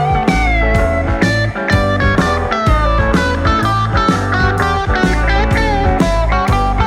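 Background music: electric guitar playing a melody with sliding notes over a steady drum beat.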